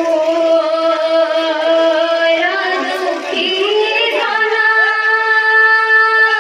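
Song from an Odia Ramlila folk-theatre performance: singing with musical accompaniment, in long held notes that slide from one pitch to the next.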